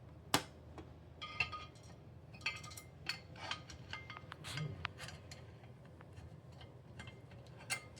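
Parts of a small desktop server rack knocking and clicking together as they are handled and fitted: scattered sharp clicks, the loudest near the start, a few with a brief metallic ring.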